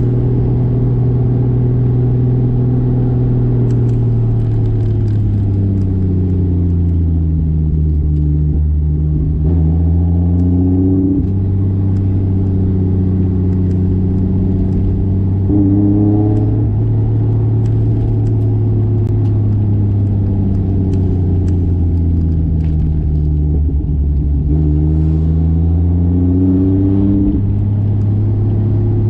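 1995 Toyota Soarer's single-turbo 2JZ inline-six running on the road. Its revs sink and then climb twice, each climb cutting off abruptly, with a brief quick rise in revs about halfway through.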